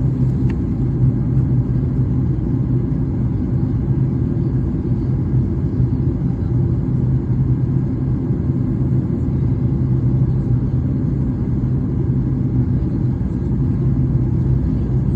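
Boeing 737 MAX 8 jet engines (CFM LEAP-1B) at takeoff power: a loud, steady low rumble with a deep hum.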